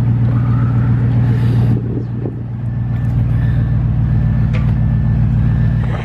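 Audi RS7's twin-turbo V8 idling steadily through its exhaust, a deep even note that eases slightly about two seconds in.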